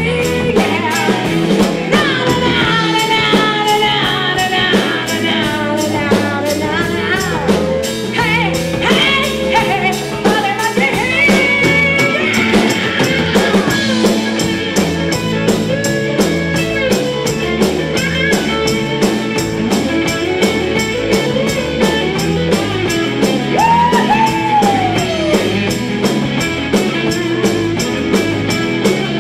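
Live band playing a rock song with singing over a steady drum beat.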